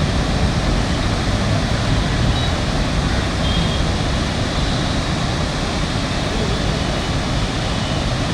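Steady rush of floodwater pouring through the open gates of the Prakasam Barrage, a loud, even roar with no break.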